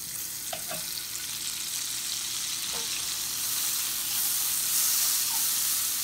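Butter melting and sizzling in hot peanut oil in a cast-iron skillet, pushed around with a utensil. The sizzle grows steadily louder as the butter starts to foam.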